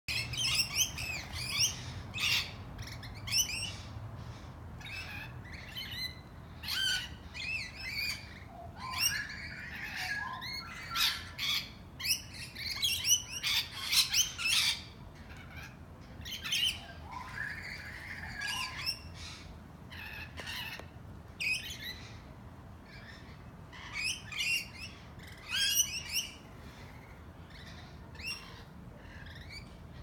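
A flock of rainbow lorikeets calling: many short, high-pitched squawks and chatters overlapping, densest around the middle and thinning out near the end.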